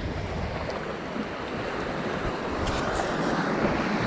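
Small sea waves washing over and draining off a rocky shoreline in a steady wash, with wind rumbling on the microphone.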